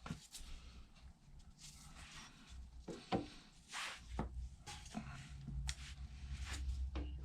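Scattered light clicks, knocks and rubbing as motorcycle engine parts are handled and fitted during starter reassembly, with a low rumble of handling noise in the second half.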